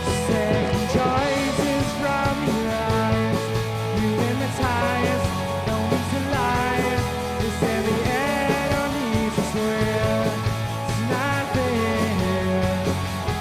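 Indie rock band playing an instrumental passage: electric guitar lines with bent notes over held bass notes that change every couple of seconds.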